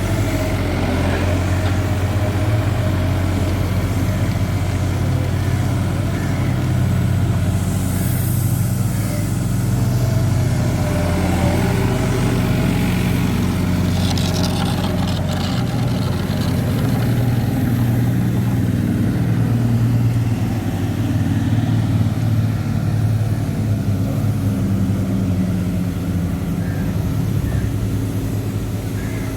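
Kawasaki K12II road roller's engine running steadily under load, its pitch rising and falling a little as the machine works.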